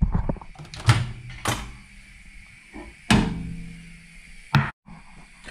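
Microwave oven door being opened and a ceramic bowl of sausages lifted out: a series of sharp clicks and knocks, one about three seconds in followed by a brief fading ring.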